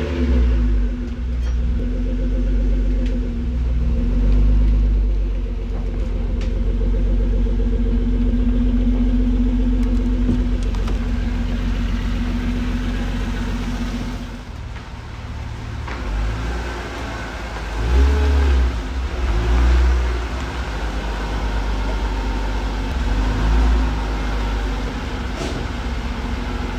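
BMW E36 325is straight-six idling steadily, then running at a lower level with a few short throttle blips, about two-thirds of the way in and again near the end.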